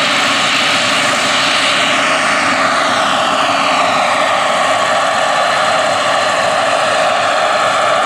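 Turbine-powered scale R/C helicopter (Bell 429 GlobalRanger model) running at flight power, with a steady turbine whine and main-rotor noise as it lifts off the grass into a low hover. A high tone in the whine sweeps down between about two and four seconds in.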